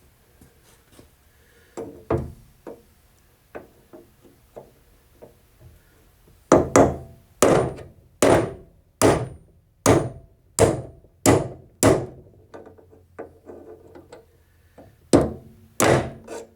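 Hammer blows on a chisel set against an old spindle bearing in a Case 224 mowing deck, driving the bearing out of its housing: a few light taps, then about nine hard, sharp metal-on-metal strikes at roughly one and a half a second, a short pause, and two final blows near the end as the bearing comes out.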